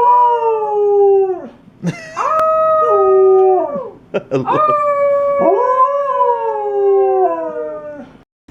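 Alaskan wolf dog howling: three long, wavering howls, the last the longest, each sliding up, holding and falling off at the end.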